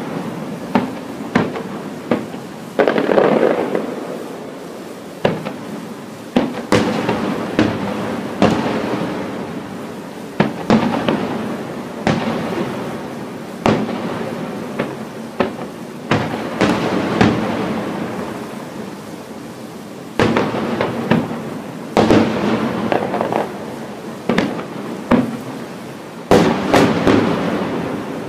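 Aerial firework shells bursting in quick succession: a steady barrage of sharp booms, several every few seconds, each trailing off in a rumble that runs into the next.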